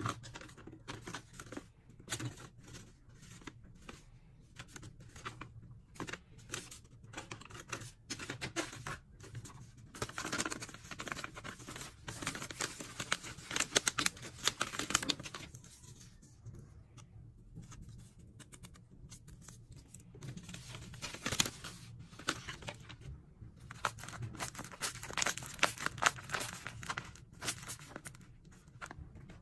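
Paper rustling, crinkling and tearing as homemade paper blind bags are handled, torn open and their paper contents unfolded. The crinkling gets louder for two longer stretches, around the middle and near the end.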